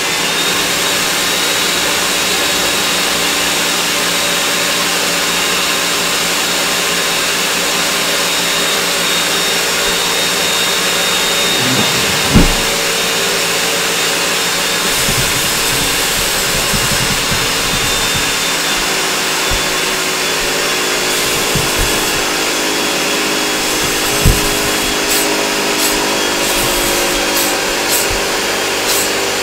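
Countertop blender running steadily at full speed as it blends a protein ice cream mix, a loud even whir. A sharp low thump about twelve seconds in and another after about twenty-four seconds break through it.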